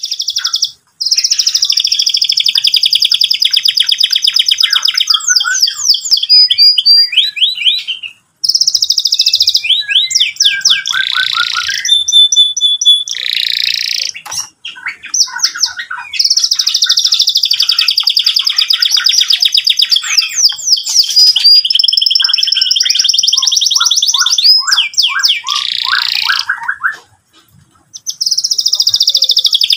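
Domestic canary singing long, rapid rolling trills with quick sweeping notes between them, in long phrases broken by a few short pauses.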